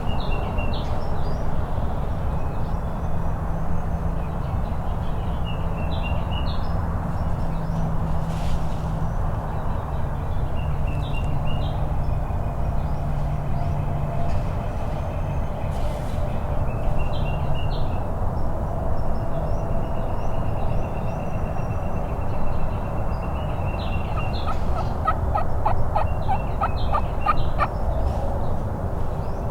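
Wild turkeys calling and gobbling over a steady rushing background noise, with a rapid run of repeated notes near the end.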